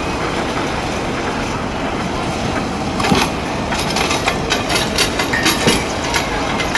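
Engine of a rail-mounted tie-handling machine running steadily. From about three seconds in, a quick run of metallic clanks and rattles from the machine and its small tie-loaded rail cart.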